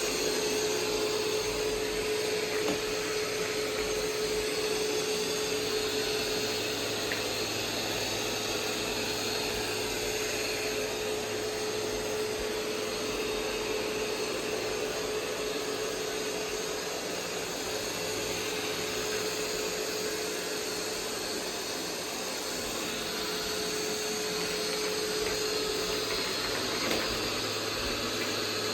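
Roomba 505 robot vacuum running steadily: an even hiss of suction and brushes with a constant motor whine.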